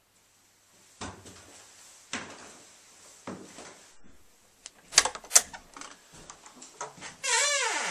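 Door being unlatched and opened: a few dull knocks, then the rim night latch clicking sharply twice about five seconds in, with some rattling, and the door hinges creaking near the end as the door swings open.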